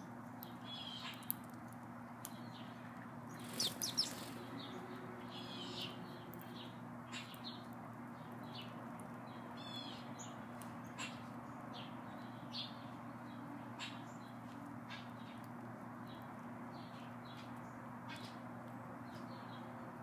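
Sparrows chirping in short, scattered chirps, with a louder cluster about three to four seconds in, over a steady low hum.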